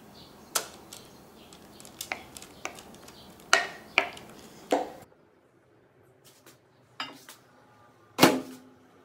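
Batter being scraped and tapped out of a ceramic bowl into a metal baking pan: about six sharp knocks of bowl and utensil over the first five seconds. After a short silence come two small clicks and a louder clunk near the end as a microwave oven door is opened.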